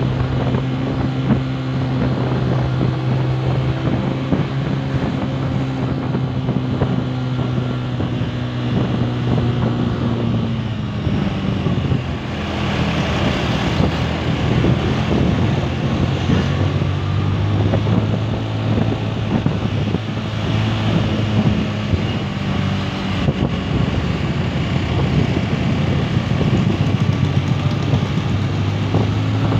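Motorcycle engine running steadily under way, with wind on the microphone; the engine note drops away about ten seconds in and builds again several seconds later.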